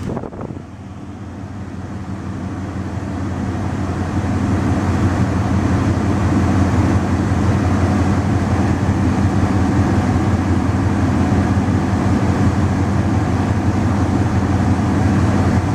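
2004 Ford Escape's 3.0-litre V6 idling in park, the rough idle the owner is chasing after fitting a new MAF sensor and O2 sensor. A steady low engine hum that grows louder over the first few seconds, then holds even.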